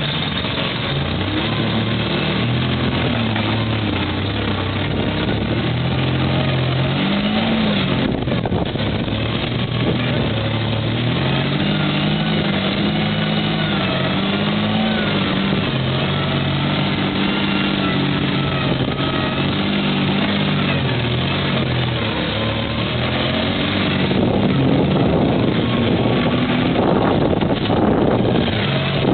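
Unimog engine pulling the truck over boulders and slickrock, its pitch rising and falling again and again with the throttle over a steady rumble. It gets louder and rougher over the last five seconds.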